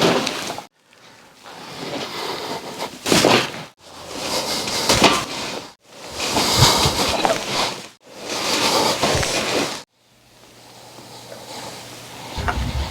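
Rustling and body movement during a series of chiropractic adjustments, heard in several short segments that break off abruptly. Each segment holds one or two sharp cracks or thumps.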